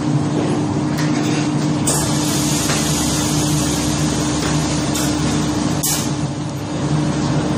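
Steady hum of food-packing machinery, with a hiss of air starting about two seconds in and a sharp click about six seconds in.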